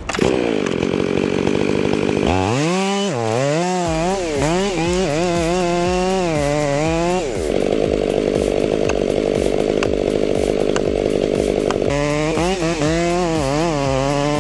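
Chainsaw running loud throughout, cutting wood. Its engine pitch wavers up and down repeatedly from about two to seven seconds in and again near the end, and it holds steady in between.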